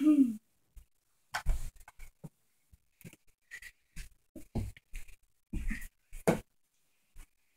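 A brief falling vocal sound, then a run of short, irregular thumps and rustles from children handling toys and the camera on a carpeted floor.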